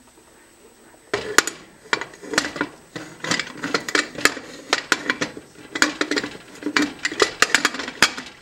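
Metal pressure-cooker lid clanking and scraping against the pot's rim as it is fitted and worked into place by the handle: a rapid, uneven run of knocks and rattles starting about a second in.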